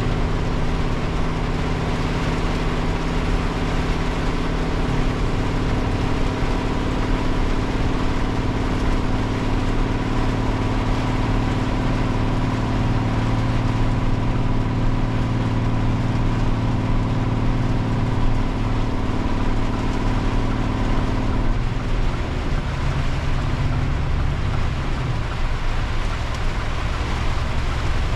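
A Scania truck's diesel engine runs steadily at high revs, heard from inside the cab, as it holds the truck back on a long downhill, with rain and road noise around it. About 21 seconds in, the engine's sound changes and its higher tones drop away.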